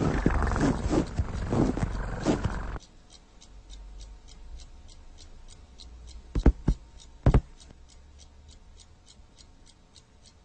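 Cartoon cat's loud, wavering meowing and growling for about three seconds, then ticking like a clock about four times a second in the quiet, with three sharp thumps a little past the middle.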